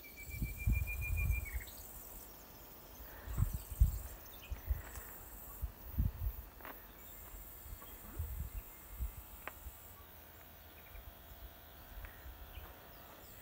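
Outdoor garden ambience with irregular low thumps from footsteps and handling of the moving camera. A single steady high whistled note runs through the first second and a half.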